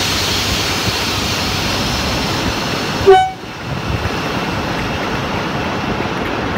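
Class 45 'Peak' diesel locomotive's Sulzer twelve-cylinder engine running steadily, with one very short, loud blast of its horn about three seconds in.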